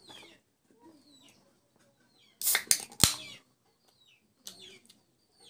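Aluminium can of carbonated soda pulled open: a few sharp cracks and a pop about two and a half to three seconds in, with a short hiss of escaping gas. Wet chewing and lip-smacking sounds come and go around it.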